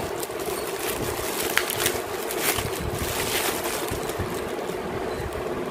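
Plastic bubble wrap rustling and crackling as hands pull it off a jar, with many small crinkles.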